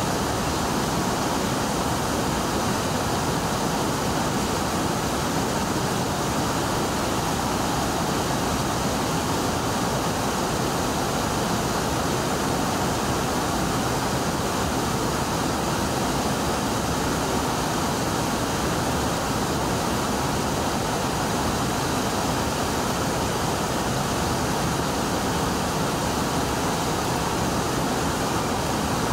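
Brooks Falls, a low, wide river waterfall, rushing steadily: an even, unbroken wash of water noise that does not change.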